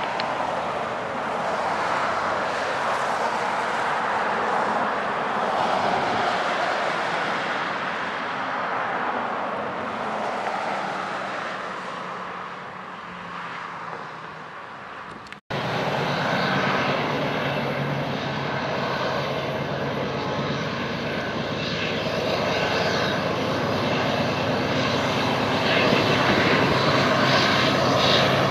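BNSF diesel-electric freight locomotives working under power on the eastbound climb of Cajon Pass, hauling a double-stack train. At first they are a distant, broad rumble. After a sudden break about halfway through, they are much closer, and their steady engine drone comes through clearly, growing a little louder near the end.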